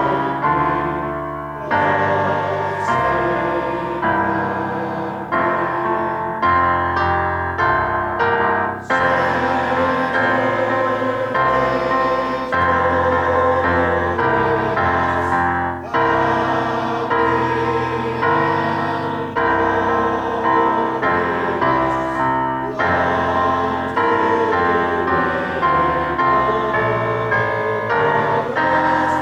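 Slow hymn music on a church piano or keyboard, held chords changing every second or two, with voices singing along at times.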